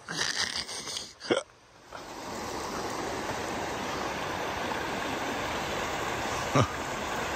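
Shallow creek running over a stony riffle: a steady rush of water that comes up about two seconds in. It follows a few brief sharp sounds in the first second and a half, the loudest about a second in, and one more short sound comes near the end.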